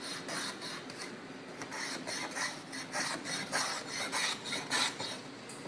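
Small hand plane shaving the edge of a wooden block in quick repeated scraping strokes, rounding over its corners.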